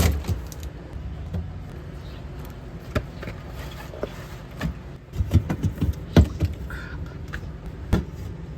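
Things being handled and set down in a refrigerator: scattered knocks and clatters as items go back onto the shelves. A busier run of them comes about five seconds in, the loudest about six seconds in.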